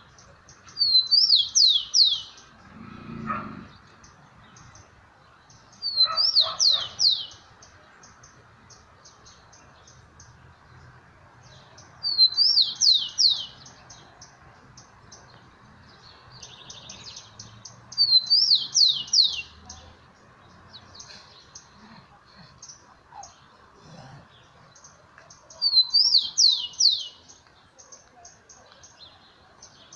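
Rufous-collared sparrow (tico-tico) singing its short, high whistled song five times, each phrase a quick run of down-slurred notes about a second and a half long, repeated every six seconds or so. Faint high chirping sounds between the songs.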